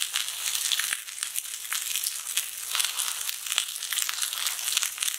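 Wagyu steaks sizzling on a cast-iron griddle over a wood fire: a steady crackling hiss with many fine irregular pops.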